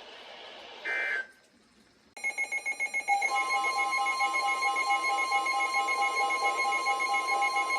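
NOAA Weather Radio alert signal: a short burst of warbling data tones about a second in, then after a brief pause a rapid electronic beeping. About three seconds in, the steady 1050 Hz weather-radio warning alarm tone joins the beeping and holds, the attention signal that comes before a new warning is read.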